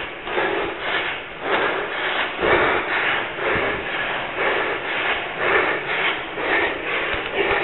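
A tower runner climbing a stairwell at race pace: rhythmic footfalls and hard breathing close to a body-worn microphone, about two beats a second.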